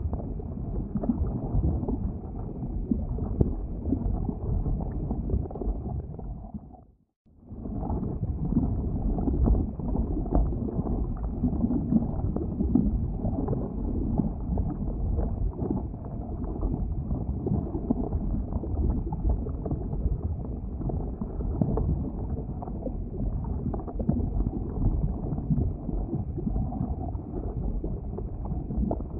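Low, steady rumble of churning, boiling lava, dense with small crackles and pops. About seven seconds in it fades out to near silence and comes straight back.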